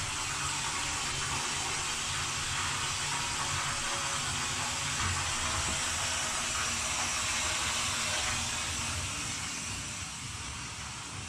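Water running from a bathroom tap into a galvanized metal tub, a steady rushing hiss as the tub fills. It gets quieter near the end.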